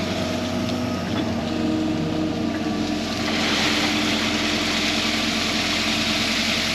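Excavator's diesel engine running steadily while digging, its note shifting slightly about one and a half seconds in, with a hiss joining from about three seconds in.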